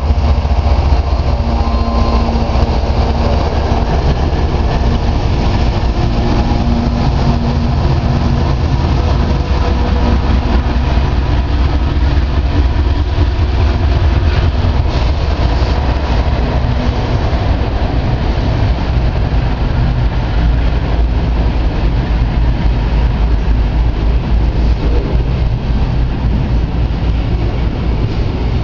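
A CSX diesel freight locomotive passes close by with a loud, steady engine drone, which fades after several seconds. After that comes the continuous rumble and clatter of double-stack intermodal container cars rolling past on the rails.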